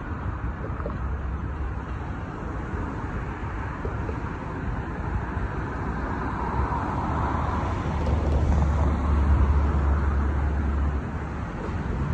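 Steady road traffic noise from a congested multi-lane expressway. A deep rumble swells louder about two-thirds of the way through, then eases off.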